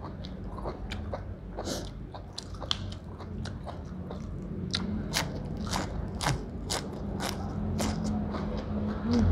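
A person chewing raw beef tripe and fresh greens close to the microphone: a run of wet, crunchy mouth clicks that comes thicker and louder from about halfway through.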